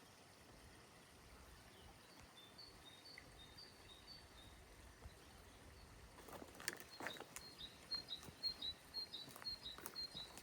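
A small bird singing a high, quick phrase of two alternating notes, twice, over a faint outdoor hush. About six seconds in, footsteps start, a string of sharp taps.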